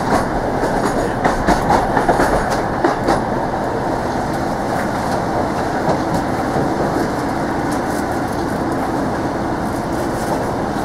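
Passenger train running, heard from inside the carriage: a steady rumble of wheels on rail with a quick run of clicks and clatters in the first few seconds, then steadier running.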